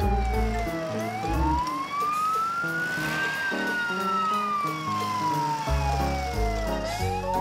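Cartoon police-car siren in a slow wail: the pitch rises for about two seconds, falls slowly for three, then starts rising again near the end. Background music with a bass line plays under it.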